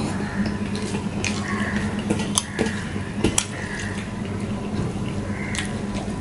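Fingers mixing rice and curry on a stainless steel plate: wet squishing and scraping, with two sharp clinks against the steel about two and a half and three and a half seconds in, over a steady low hum.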